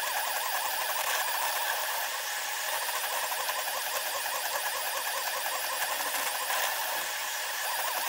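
SeeMeCNC Orion delta 3D printer's stepper motors running through a print, played back at ten times speed: a steady, thin, high whine that wavers rapidly up and down in pitch, over a constant hiss.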